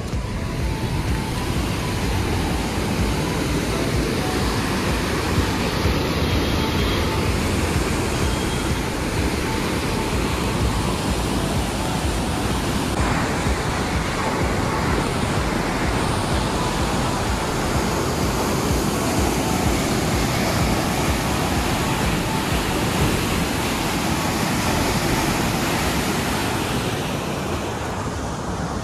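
Heavy flow of white water rushing down a narrow walled canal: a loud, steady rushing noise.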